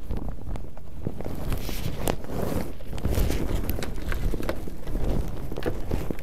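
Clothing rubbing against a body-worn camera's microphone, with scattered knocks and scrapes as a person clambers over loose boards and corrugated roofing sheets. A stretch of rustling comes about a second in.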